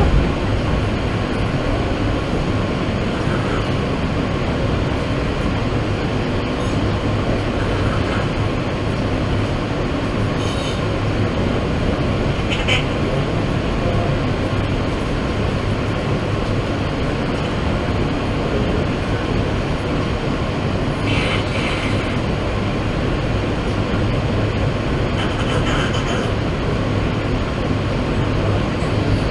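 New York City subway train running between stations: a steady rumble of wheels on track, with brief high wheel squeals a few times.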